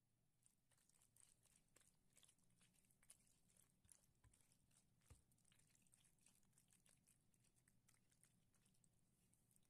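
Very faint, irregular soft clicks of a spatula mixing penne pasta through a creamy white sauce, denser in the first half.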